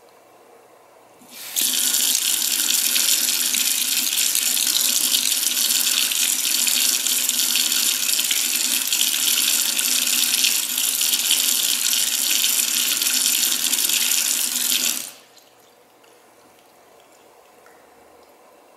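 Moen Arbor MotionSense kitchen faucet switching on by its motion sensor about a second and a half in, its stream running steadily into a stainless steel sink, then shutting off abruptly after about fourteen seconds.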